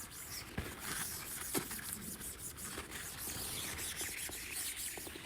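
Faint rubbing and scraping of a damp tissue wiped across the film surface, with a few small clicks.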